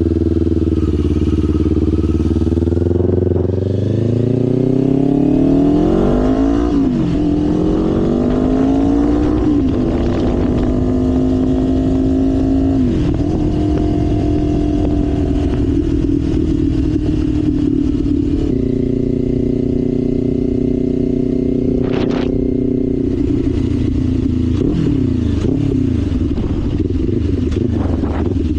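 Kawasaki Ninja 500's parallel-twin engine under way. In the first ten seconds the revs climb twice, each climb ending in a quick drop at an upshift. The engine then holds steady revs at cruise, with a short sharp click about two-thirds of the way through, and the revs fall away near the end as the bike slows.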